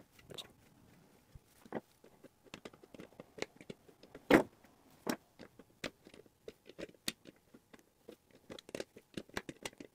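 Needle-nose pliers gripping and turning a small security screw in a metal equipment case: scattered small metal clicks and scrapes, with one louder click about four seconds in.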